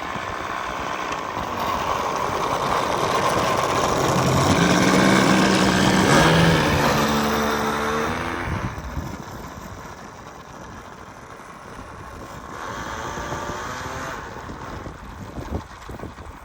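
Delta 40 RC model airplane's engine running while the plane taxis. Its note swells to its loudest in the middle and shifts in pitch, fades, then rises again briefly near the end.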